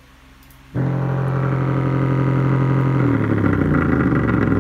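A bare 4-inch subwoofer driver playing a 44 Hz sine tone at high excursion: a loud low hum rich in overtones that starts abruptly under a second in, then turns rougher and buzzier about two seconds later.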